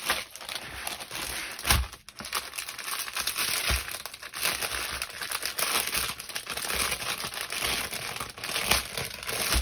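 Plastic crinkling and rustling as small plastic bags of diamond painting drills are handled, with crackles throughout and two louder knocks in the first four seconds.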